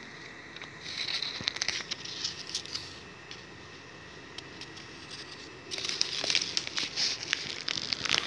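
Crinkly rustling and crackling in two spells, about a second in and again from the middle to the end, over a faint steady high tone.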